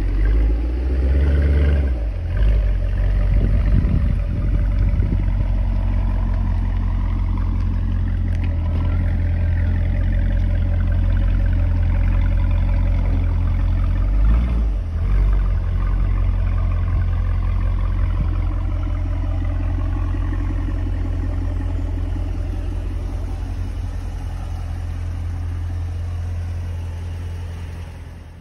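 Dodge Durango R/T's 5.7-litre HEMI V8 running through a Borla Type S cat-back exhaust, a deep steady exhaust note with revs near the start and again about halfway. The sound fades out near the end.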